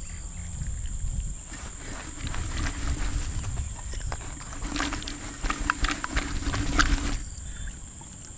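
Mustard oil poured into a clay pot of pickle: from about two seconds in, a hissing, clicking splatter lasting about five seconds that stops sharply. Under it, the steady high chirring of crickets.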